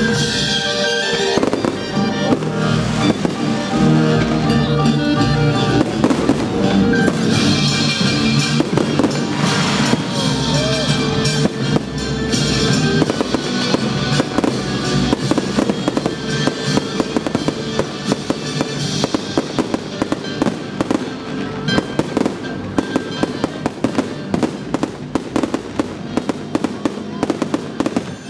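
Fireworks bursting and crackling over loud recorded music, the pops coming thicker and faster in the second half.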